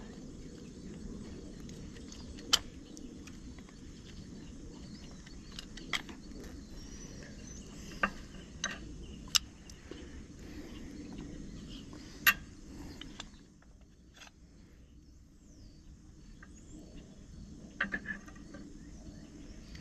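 Scattered sharp metallic clinks and clanks of hand tools and parts being handled while swapping the idlers on a grain drill's chain drive, a handful of single knocks with a quick cluster near the end, over a low steady background.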